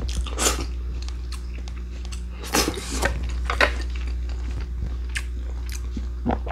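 A person chewing and biting food with the mouth open, with wet smacking and short crunchy clicks now and then, over a steady low hum.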